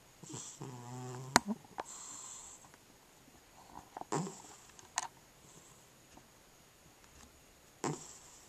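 Sleeping tabby cat breathing noisily in its sleep: a short buzzing snore about a second in, then hissing, wheezy breaths at about two, four and eight seconds with quiet pauses of a few seconds between them, the pauses the uploader takes for sleep apnea. A sharp click comes right after the snore and another about five seconds in.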